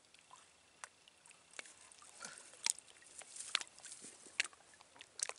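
Irregular light clicks, rattles and small splashes of a wire fish basket being handled in shallow water at the shoreline. The loudest taps come a little under three seconds in and at about three and a half seconds.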